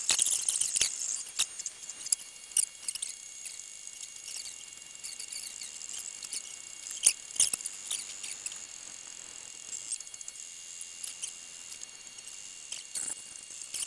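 MakerBot Replicator 2 3D printer at work: its stepper motors drive the extruder head back and forth in a busy run of short high-pitched tones and ticks over a steady high whine.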